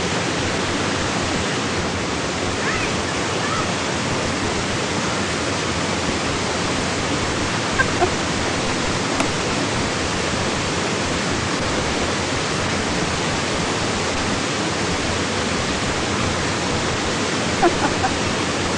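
Waterfall rushing, a steady, even roar of falling water. A few brief faint sounds stand out about eight seconds in and again near the end.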